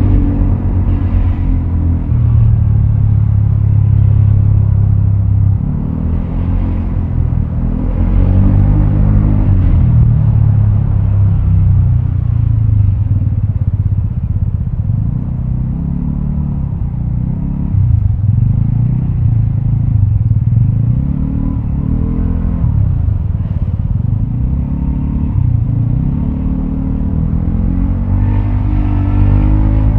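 Vespa automatic scooter's single-cylinder engine running through a Prospeed Black CNC aftermarket exhaust while riding, the revs rising and falling again and again as it speeds up and eases off.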